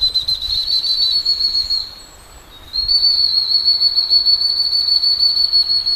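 Crosby dog-training whistle blown in long, high, rapidly trilling blasts: one stops about two seconds in, and another starts about a second later. It is the handler's recall signal calling the Bracco Italiano puppy in.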